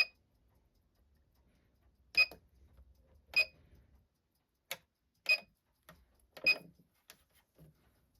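A series of sharp, separate clicks at irregular intervals, about one a second, some with a brief high ringing tone, from handling on a watchmaker's bench while a timing machine is being set up.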